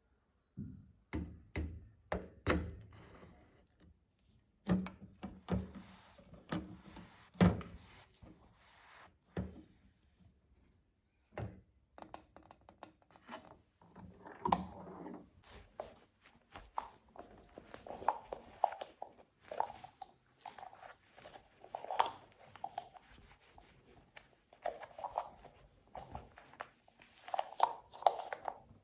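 Hands cleaning a washing machine: a run of knocks and handling clatter, then about halfway through steady rubbing and scrubbing with short squeaky swells.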